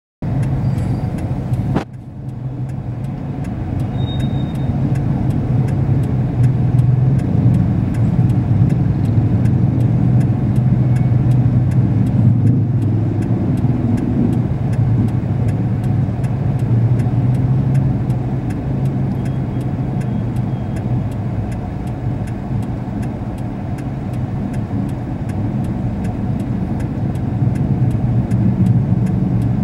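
Car engine and street traffic heard from inside the car's cabin as a steady low drone, with a faint regular ticking a few times a second.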